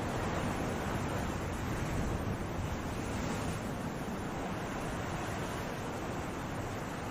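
Sea waves washing onto the shore: a steady rush of surf that swells a little about two seconds in and then eases.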